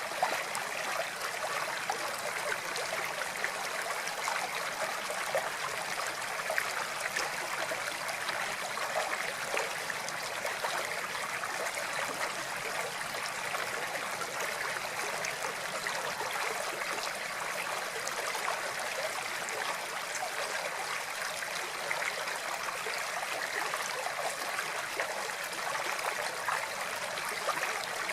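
Water flowing and trickling steadily, like a small stream running over stones, with fine splashing detail.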